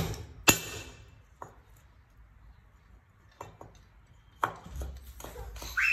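A steel cleaver knocking on a wooden chopping board: two sharp knocks at the start, a few light taps, then chopping strokes begin in the last second and a half.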